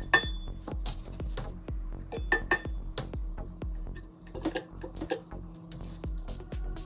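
Glass marbles clinking against each other and the pot as they are dropped into a plant pot to make a drainage layer, in small groups of sharp clinks. Background music with a steady beat plays underneath.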